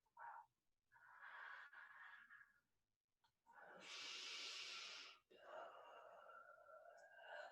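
Faint, slow breathing close to the microphone: a soft breath, then a long hissing exhale about halfway through, then another drawn-out breath toward the end.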